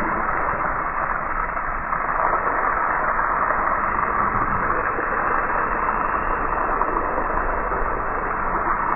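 Water from a garden hose spraying onto a car's alloy wheel and splashing onto the wet pavement: a steady, muffled hiss.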